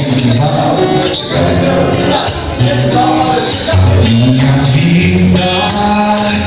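A man singing live in long held, gliding notes, over instrumental accompaniment.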